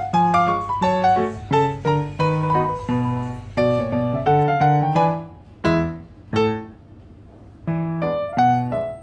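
Background piano music: a melody of single struck notes that thins out and pauses briefly about two-thirds of the way through, then picks up again.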